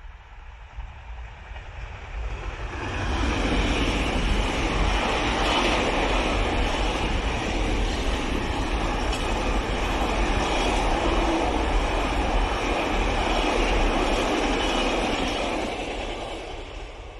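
Class 66 diesel locomotive hauling a long intermodal container freight train past. The rumble builds over the first three seconds as the locomotive approaches, then the container wagons roll by in a long, steady noise that fades away near the end.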